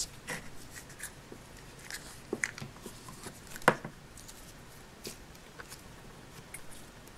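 Hands pressing and molding Play-Doh onto a plastic toy ice cream cone: quiet soft handling with scattered light clicks of the plastic, the sharpest about three and a half seconds in.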